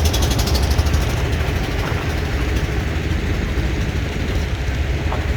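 Heavy machinery running steadily: a loud low rumble with a rough hiss over it.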